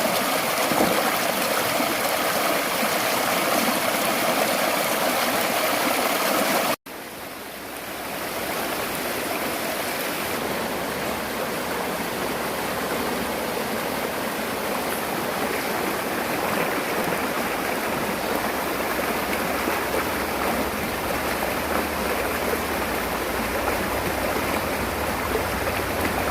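Mountain stream water rushing steadily over rocks. About seven seconds in it cuts out for an instant and comes back softer, then settles into a steady rush again.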